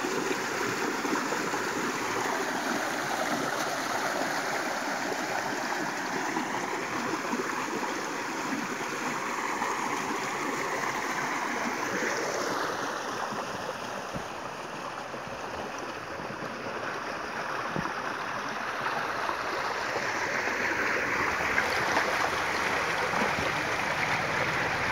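Swollen monsoon stream water rushing and foaming as it pours through a concrete channel into a hand-held push net, a steady torrent. It eases slightly about halfway through, then comes back up.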